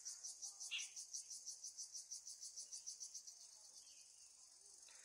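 Faint insect chirring in a fast, even pulse that fades out about three seconds in, with one brief, slightly louder sound about a second in.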